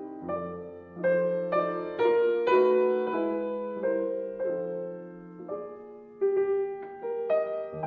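Soft background piano music, single notes and chords struck in turn and left to ring and fade.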